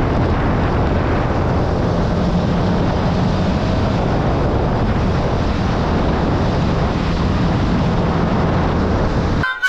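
Wind rushing over the microphone of a moving motorcycle, with the bike's engine running steadily underneath. It cuts off abruptly just before the end.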